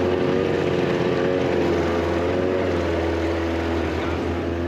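25 hp outboard motor running at a steady speed, driving the boat along under way.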